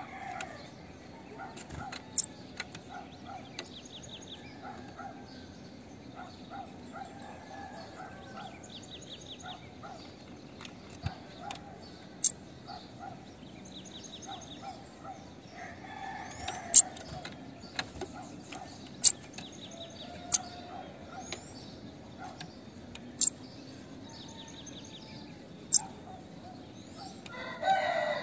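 Female bananaquit calling: sharp, high chips every few seconds and a few short buzzy trills. A longer, lower call sounds twice, near the middle and at the end.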